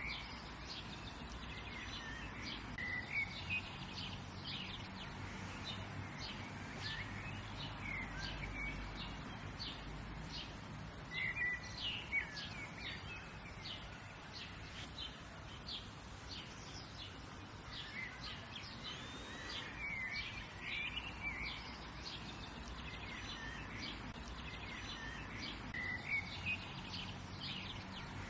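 Birdsong in the open: several birds chirping and calling, with many short high chirps coming in clusters throughout, over a steady low background rumble.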